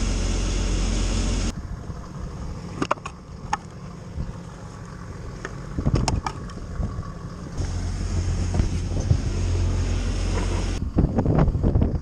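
Small Unit Support Vehicle's engine and tracks making a steady low drone inside the cab, which cuts off suddenly about a second and a half in. Then a quieter stretch with a few sharp clicks and knocks, before the low drone returns for about three seconds and gives way to wind and knocks near the end.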